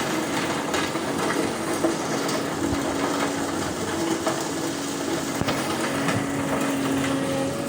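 Doosan DX200A hydraulic excavator's diesel engine running steadily with a held low tone over a dense mechanical clatter, with a few sharp knocks scattered through.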